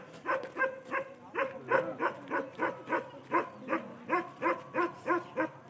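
A dog barking over and over in a steady rhythm, about three barks a second.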